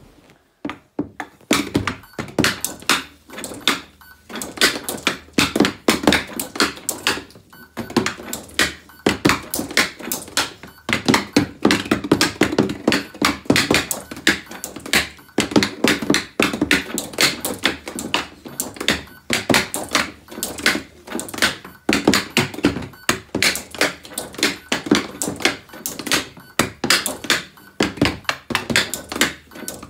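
Hockey stick blade rapidly knocking a puck back and forth on a dryland stickhandling board, a steady run of quick clacks, several a second, starting about a second and a half in.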